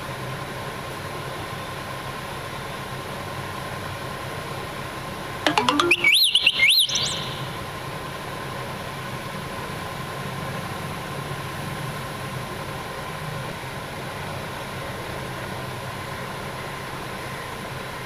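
Steady background noise like a fan running, with a low hum and a thin steady tone. About six seconds in, a loud warbling chirp, rising and falling in pitch, lasts about a second and a half.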